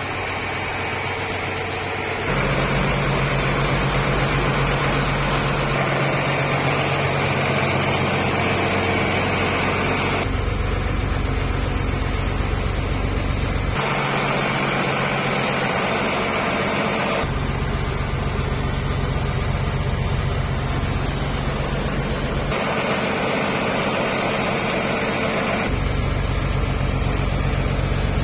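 EBRO H 135 DT tractor's Nissan B6.60 diesel engine running steadily, heard in a series of short takes whose sound changes abruptly every three to five seconds; it gets louder about two seconds in.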